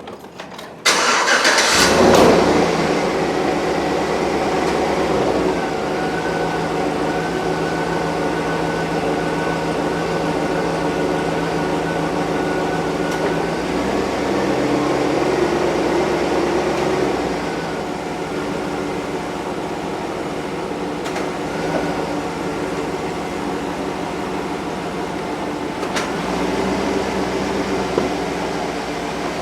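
2008 Chevy Suburban's engine cranks and starts about a second in, then idles steadily. A thin steady whine sits over the idle for several seconds early on.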